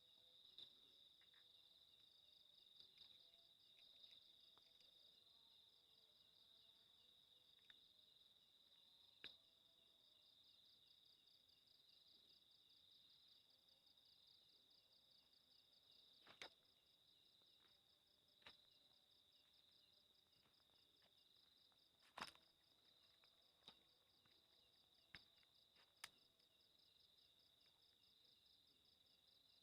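Near silence with a faint, steady high chirring of night insects such as crickets, finely pulsing, and a few faint ticks scattered through it.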